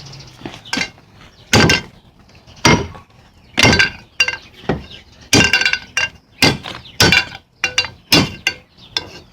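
Hand hammer striking metal on an anvil: a dozen or so uneven, irregularly spaced blows, each with a short metallic ring.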